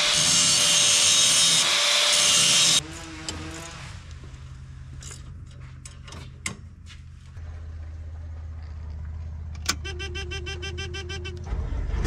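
A handheld power tool runs on a combine header's knife for about three seconds and cuts off. Scattered light metal clicks and knocks of hand work on the knife sections follow. Near the end the combine's engine cranks and starts with a loud low rumble.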